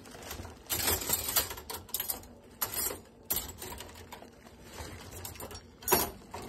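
Irregular clicks and clatter of cutlery and dishes being handled in an open dishwasher, with a louder knock about six seconds in.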